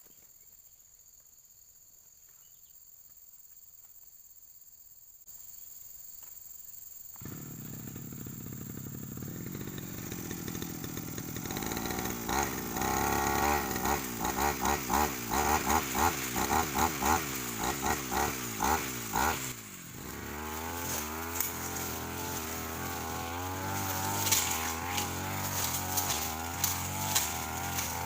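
A Stihl two-stroke brush cutter with a Sandvik blade starts about seven seconds in and runs, its engine revving up and down again and again as it cuts through brush and woody scrub. It drops briefly near twenty seconds in. Before it, insects chirp steadily.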